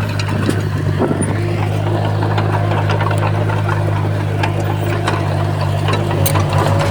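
Komatsu D51PX bulldozer's diesel engine running steadily, with scattered short clanks and knocks over it.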